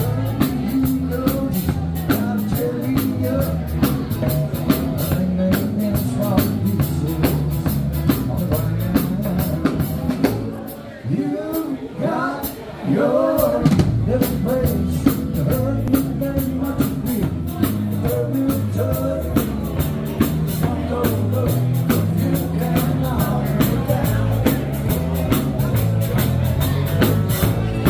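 Background music with a steady drum beat and singing, dropping away briefly about eleven seconds in before the beat returns.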